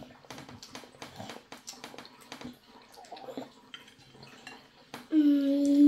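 Metal spoon clinking and scraping against a ceramic plate in a run of light, irregular taps. About five seconds in, a voice starts humming one steady note.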